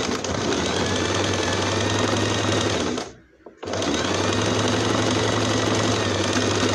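Electric sewing machine stitching fabric at a steady speed. It stops briefly about three seconds in, then runs again.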